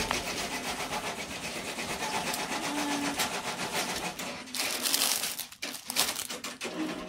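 Multi-needle embroidery machine stitching with a rapid, even clatter. Plastic-bagged shirts crinkle as they are handled, loudest about five to six seconds in.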